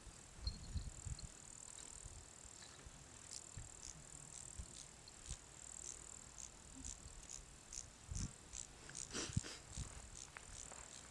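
Faint, steady, high-pitched insect chirring, broken into short repeated pulses through the second half, with a few low wind thumps on the microphone.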